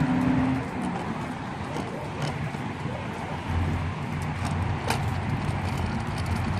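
Hard plastic tricycle wheels rolling on a concrete sidewalk: a steady rumbling rattle, with two sharp clicks, one about two seconds in and one near five seconds.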